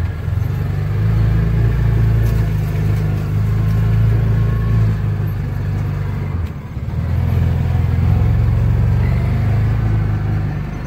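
Engine of a side-by-side utility vehicle running steadily as it drives over a grass track, heard from the driver's seat; the engine sound dips briefly just past the middle, then picks back up.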